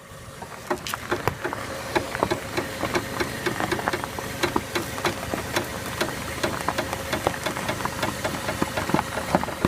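Worn front sway bar link on a 2007 Chevy Aveo cracking and clicking many times, irregularly, as the steering is turned, over a steady idling engine. The link's ball-joint end has worn out.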